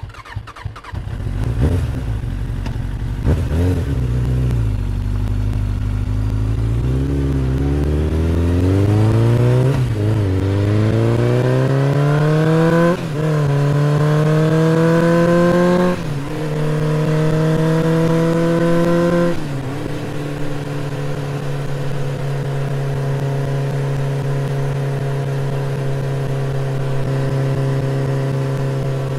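1971 Norton Hi-Rider's air-cooled parallel-twin engine revving a few times, then pulling away and accelerating through the gears. Its pitch climbs steadily and drops at three upshifts, then the bike settles to a steady cruise for the last ten seconds or so.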